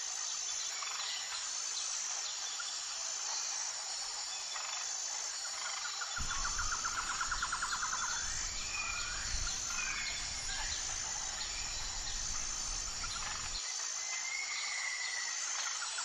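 Forest ambience: a steady high insect drone that pulses about every second and a half, with birds calling over it in quick trills and short whistles. A low rumble comes in about six seconds in and cuts off shortly before the end.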